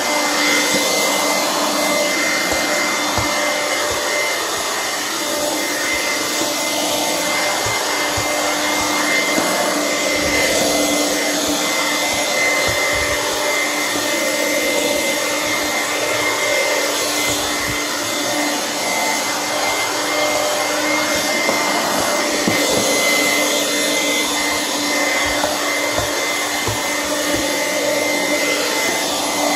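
Hoover vacuum cleaner running steadily: an even motor hum and airflow rush with a steady whine, and scattered low knocks throughout.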